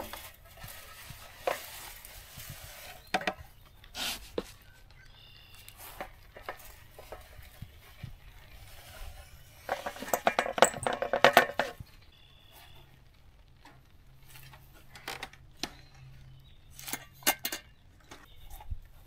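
Scattered clinks and knocks of equipment being handled, with a dense rattle lasting about two seconds around ten seconds in.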